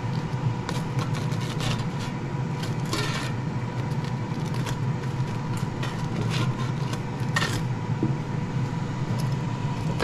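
Ninja dual-drawer air fryer running with a steady fan hum, overlaid by scattered light scrapes and taps of a silicone spatula against the metal basket as potato cakes are flipped.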